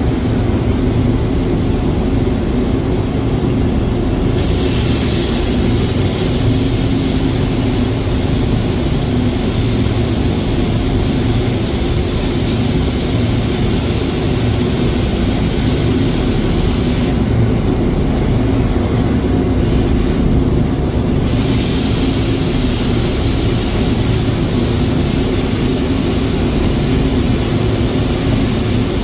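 Steady, loud machinery noise with a low hum, like an engine running without pause. The hiss on top thins out briefly a few times.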